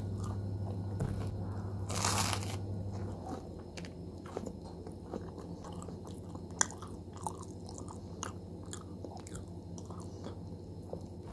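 A bite into crispy, sauce-coated fried food, with one loud crunch about two seconds in, followed by chewing with scattered small clicks and crackles.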